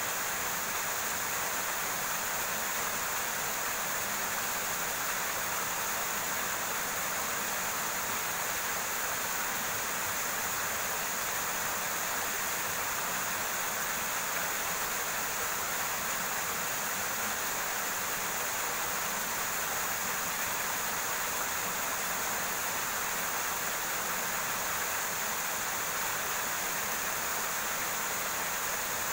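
River water rushing steadily over rocks, an even unbroken noise.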